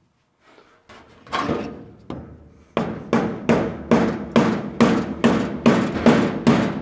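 Steel bar ramming a steel steering shaft, metal-on-metal blows, to drive it into the steering box joint. One blow about a second in, then a steady run of about ten blows, roughly two and a half a second, each ringing briefly. The 3/4-inch shaft is too tight a fit to go in.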